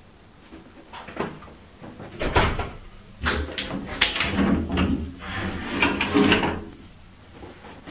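Bifold glass shower door with a metal frame being folded open and closed by hand, its panels and hinges clattering in a run of knocks and rattles.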